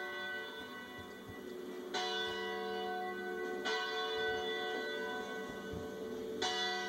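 Church bell tolling: three strokes in the belfry, each one ringing on with a long humming decay that carries over into the next.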